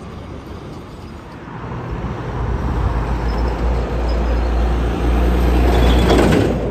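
A heavy vehicle rumbling and humming as it draws close, growing louder over several seconds, with a short burst of hissing noise near the end as it passes.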